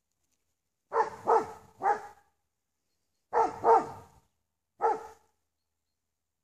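Briard barking: six deep barks in two bursts of three, about a second in and again near the middle. The dog is barking at white-sheeted 'ghost' figures in front of it.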